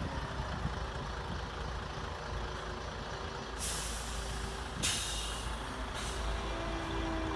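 Model 8x8 truck's simulated diesel engine running with a steady low rumble, with three hisses of air-brake release from about halfway through, the first lasting about a second.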